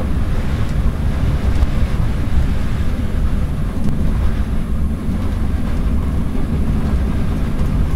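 Cab interior noise of an ED9M electric multiple unit running along the line: a steady low rumble with no distinct knocks or rhythm.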